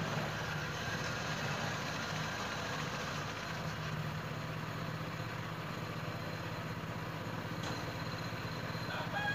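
Steady low mechanical hum, like an idling engine, over a faint even background haze.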